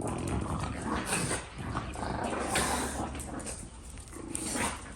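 Dog growling in uneven bursts.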